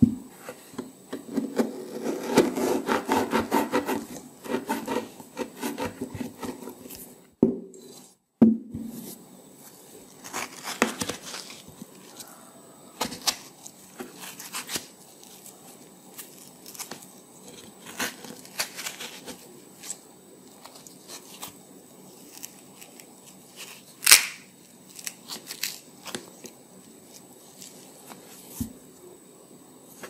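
Kitchen knife cutting and scraping into peeled winter melon flesh. A quick run of rasping strokes comes in the first few seconds, then separate slicing strokes, the sharpest about 24 seconds in.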